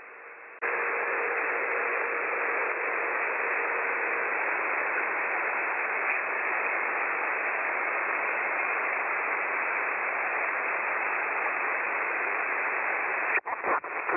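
Steady hiss of band noise from a 6 m amateur radio transceiver receiving single sideband, cut off above about 3 kHz. It comes up suddenly a little over half a second in, with a faint steady whistle under it for the first few seconds, and breaks up near the end.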